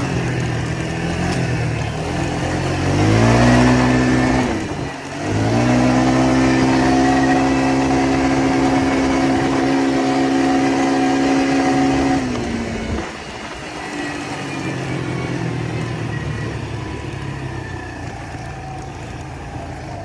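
Four-wheeler engine under way: it revs up about three seconds in, dips briefly near five seconds, climbs again and holds a steady high pitch, then eases off around thirteen seconds and runs lower.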